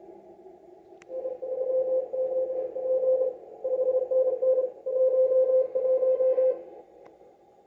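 Morse code (CW) on amateur radio: a single steady beep keyed on and off in dots and dashes over receiver hiss. A click comes about a second in, just before the keying starts, and the keying stops about a second before the end.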